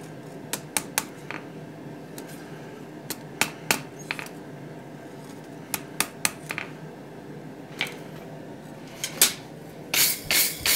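Light, irregularly spaced hammer taps on a hand-forged iron strap hinge, straightening the small bow left by stamping the touch mark. Near the end a quick run of even scrubbing strokes on the metal starts, about five a second.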